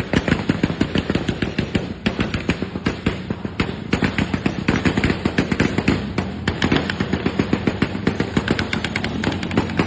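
Motorcycle exhaust through a modified silencer, firing as a fast, unbroken run of sharp, loud pops, several a second.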